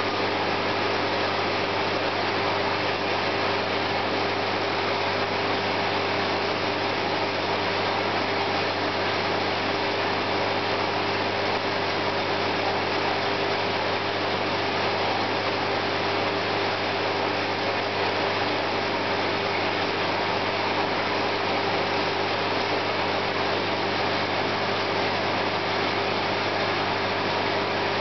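Aquarium equipment, such as a pump or filter, running with a steady mains hum under an even hiss of moving air or water.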